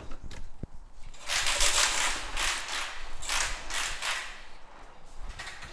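Cordless battery-powered ratchet spinning in about four short bursts, a high whirring with the pawl chattering.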